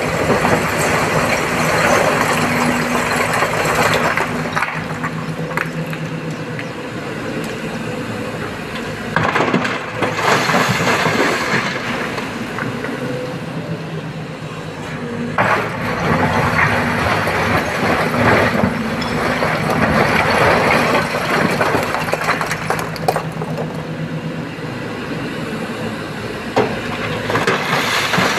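SANY crawler excavator's diesel engine running steadily under hydraulic load while its bucket digs, scrapes and dumps broken quarry rock, with repeated stretches of heavy rock clattering and grinding.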